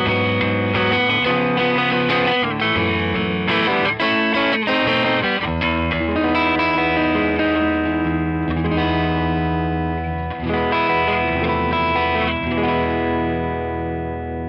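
1994 Hamer Chaparral electric guitar through a Tone King Imperial Mk II amp on a crunch setting, lightly overdriven. Quick picked and strummed chord figures give way about five seconds in to held chords, and near the end a last chord is left to ring and fade.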